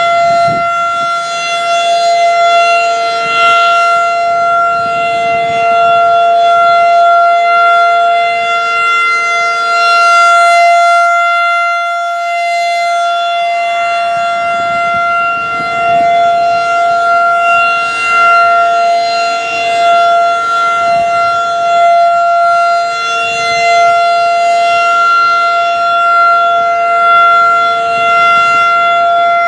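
Federal Signal 2001-DC outdoor warning siren sounding a steady alert: one loud, unwavering wail that swells and fades in loudness every few seconds.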